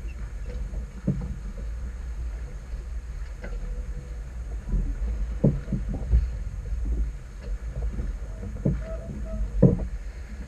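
Small sailboat under way in a fresh breeze: wind rumbling on the microphone, with irregular knocks and slaps of water against the hull every second or so.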